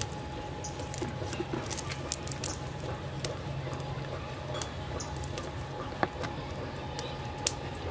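Faint wet squishes and scattered short clicks from a wet cast net and the fish being handled on muddy ground, the sharpest click about six seconds in. Under them runs a steady low hum.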